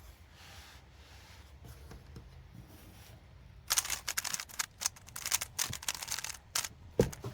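A lubed Moyu Weilong Ferrocore 3x3 speedcube being turned fast: a quick run of light plastic clacking turns about halfway in, then one sharp click near the end.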